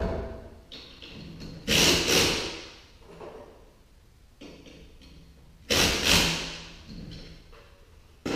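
Knocks and rattles on a steel sectional garage door, each one sudden and ringing away over about a second; the loudest come about two and six seconds in.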